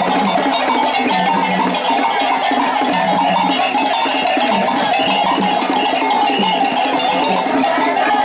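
A group of voices singing together, with an iron bell struck over and over in a steady rhythm.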